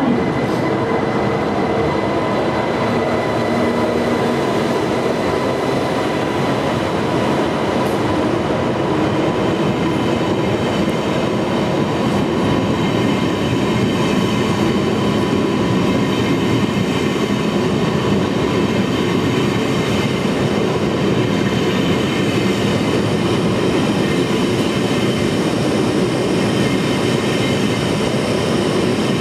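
ICE 1 (class 401) high-speed train pulling out slowly past the platform: a continuous, steady rolling noise of wheels on rail with a few steady high whining tones.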